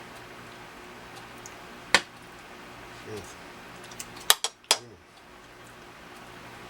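Sharp clinks of cutlery against a plate as chicken is eaten: one about two seconds in, then three quick ones a little past the middle, over a low steady hum.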